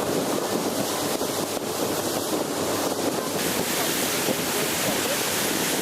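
Steady rushing noise of wind and sea surf, with wind buffeting the microphone; it holds an even level and cuts off abruptly at the end.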